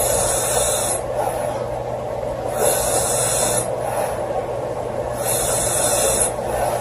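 A woman snoring loudly in her sleep. A noisy, breathy snore comes about every two and a half seconds, each lasting about a second.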